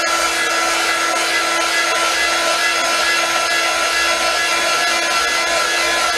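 Handheld heat gun running steadily, its fan blowing hot air over fresh epoxy to pop bubbles: an even rushing blow with a constant motor hum.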